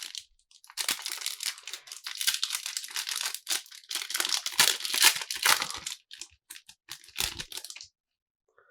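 A foil booster pack wrapper being torn open and crinkled by hand: dense crackling for about five seconds, then a few scattered crinkles that stop near the end.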